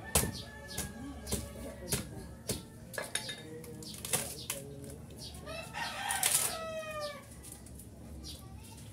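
A rooster crows once, a long call that falls in pitch at its end, about six seconds in. Before it comes a run of sharp knocks or taps about every half second.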